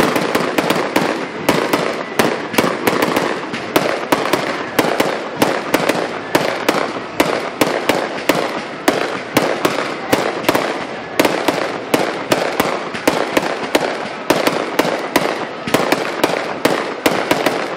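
Fireworks going off in quick, continuous succession: a steady run of sharp bangs and crackles, several a second, without a pause.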